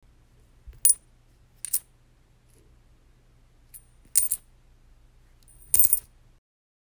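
Coins dropping and clinking in four short bursts a second or two apart, each with a brief high metallic ring, over a faint low hum that cuts off near the end.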